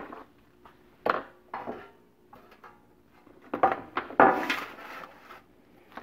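A sheet-metal drain pan being brought in and set down on a wooden workbench: a few light knocks, then a louder clatter of metal with a brief ring a little past halfway.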